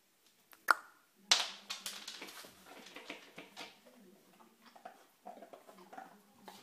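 A kitchen cupboard door knocking shut: a sharp click, then a louder knock, followed by a jumble of small knocks and rustles as the door is handled.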